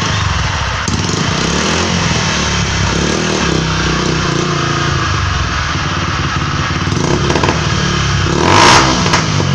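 Small motorcycle engine running loud through an exhaust with its filter removed, revved up and down a few times, with a louder burst of revs near the end.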